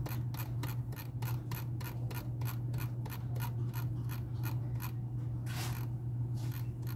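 Computer mouse scroll wheel clicking notch by notch, about four clicks a second, as a document is scrolled, over a low steady hum. The clicks stop about five and a half seconds in and give way to a brief rustle.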